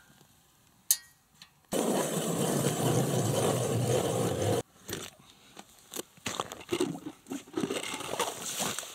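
Hand ice auger cutting through lake ice. A steady crunching, scraping grind sets in about two seconds in and stops abruptly, followed by scattered quieter crunches and scrapes as the drilling goes on.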